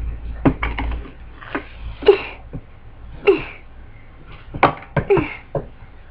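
Scattered short sounds at close range: a few brief voice noises like coughs or stifled giggles, among sharp taps and knocks from a doll being handled near the microphone, with a low handling rumble in the first second.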